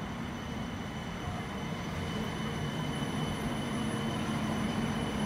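CAF Urbos 3 light rail tram pulling into the platform: a steady low rumble and hum that grows slightly louder as it draws alongside.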